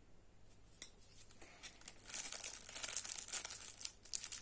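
Packaging crinkling and rustling as it is handled, starting about two seconds in, after a single small click about a second in.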